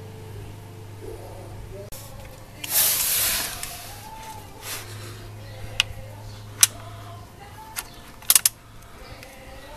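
A brief loud rush of noise about three seconds in, then several sharp metallic clinks: a steel ratchet and 13 mm socket knocking against the oil pan drain plug as the socket is fitted onto it, two of them close together near the end. Faint music plays underneath.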